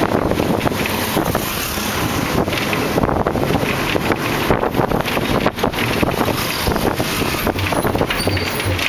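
Wind buffeting the microphone over the running noise of a moving vehicle, a dense, steady rush without a break.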